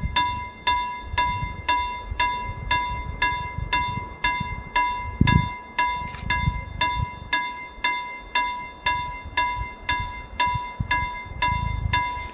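Railway level crossing warning bell ringing steadily, about three strikes a second, warning road users of an approaching train while the crossing barrier moves.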